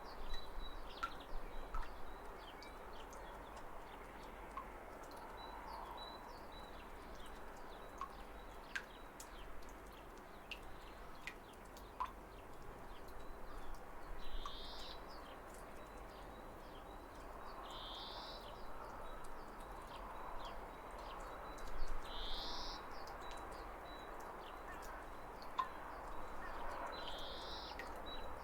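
Steady rush of a small waterfall with birds over it: scattered short chirps throughout, and from about halfway one bird repeating a short call about every four seconds.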